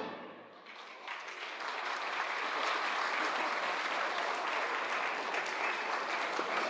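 The orchestra's final chord dies away, then a crowd applauds, the clapping swelling about a second in and holding steady.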